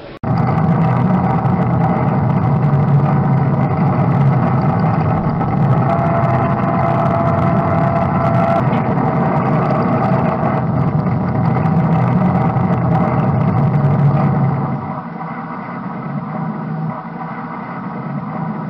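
A motor engine running loud and steady, with a held whine for a few seconds in the middle, easing off about fifteen seconds in.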